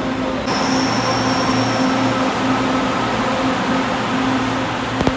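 Loud steady mechanical rumble and low hum of a running escalator, with a faint high squeal of train wheels that fades out in the first two seconds. A couple of sharp clicks come near the end.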